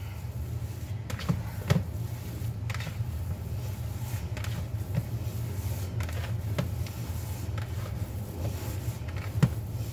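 Hands kneading and squishing raw ground beef with crushed crackers and egg in a plastic mixing bowl: soft, irregular squelching with a few sharper knocks, over a steady low hum.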